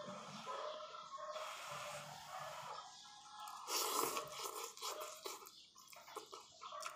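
A man slurping and chewing ramyun noodles, breathing heavily through the nose, with a louder slurp about four seconds in.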